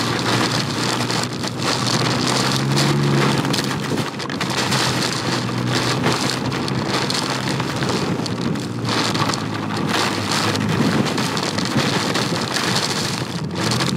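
Heavy rain and strong gusting wind, about 45 mph gusts, beating on the microphone of a rider on a Can-Am Ryker: a dense, steady roar of noise. The trike's engine note comes through faintly now and then.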